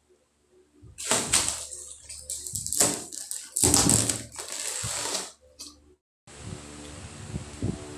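Large cardboard box scraping and rustling as it is lifted off a boxed TV: a string of rough, noisy scrapes over about four seconds. About six seconds in it gives way to a steady hiss.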